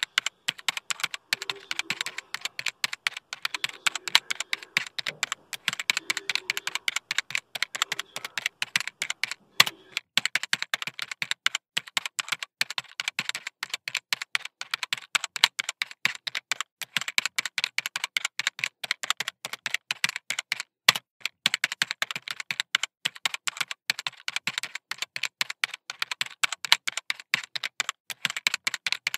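Fine-tip pen tapping dot after dot onto sketchbook paper while stippling, a quick run of light taps at several a second.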